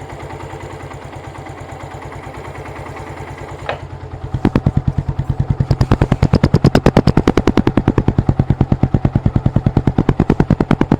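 Suzuki Gixxer's single-cylinder engine running with a steady, even beat, freshly rebuilt with a new cylinder block, piston, cam and rockers. About four seconds in, the beats turn louder and sharper and stay that way.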